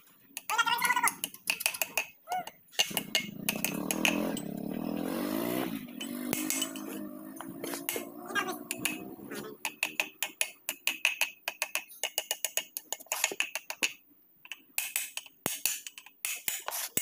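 Metal-on-metal tapping and clinking, several quick taps a second in runs, as a steel bar is worked inside the end of a John Deere tractor's rear axle housing during an axle bearing replacement.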